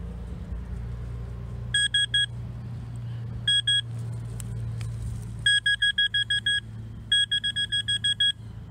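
Metal-detecting pinpointer probe beeping as it is worked through a dug clump of clay: a few short beeps about two seconds in, a pair a little later, then fast strings of about eight beeps each from past the middle as it homes in on the target, a buried shotgun casing. A low steady hum runs underneath.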